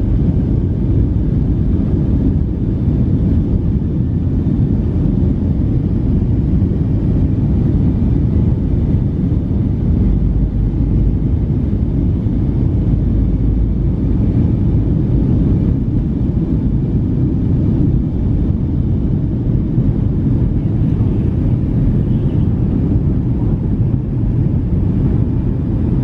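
Boeing 757-300's twin turbofan engines at takeoff thrust, heard from inside the cabin over the wing: a loud, steady low rumble through the takeoff roll and into liftoff.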